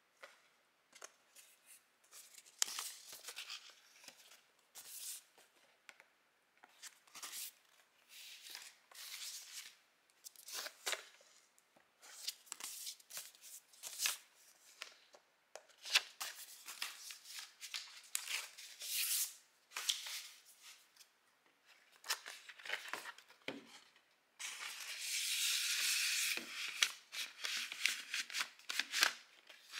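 Handling noise from a vinyl record and its sleeves: a run of short rustles, scrapes and taps, with a longer steady rustle lasting about two seconds near the end.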